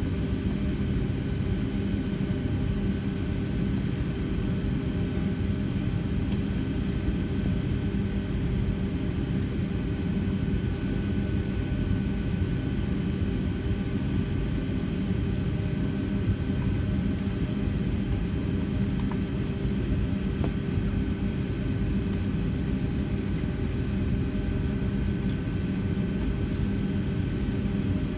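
Steady rumble of a Boeing 757-300's jet engines idling, heard inside the passenger cabin, with a steady hum of a few tones over it.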